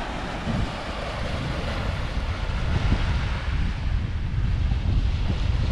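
Wind buffeting the microphone with a steady low rumble, over the hiss of small waves washing onto a sandy beach. The wind gets a little louder toward the end.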